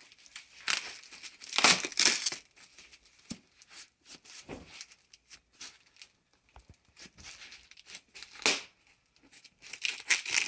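Foam wrap and plastic packing tape being pulled, torn and crinkled by hand. The loudest tearing comes about a second in and again near the end, with a single sharp rip at about eight and a half seconds and quieter rustling between.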